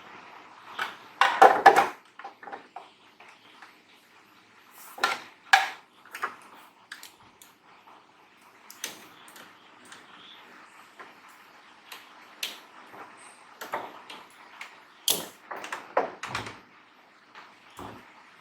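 Scattered clicks, taps and knocks of small parts and tools being handled on a workbench, with a loud clatter about a second and a half in and more knocks near the end.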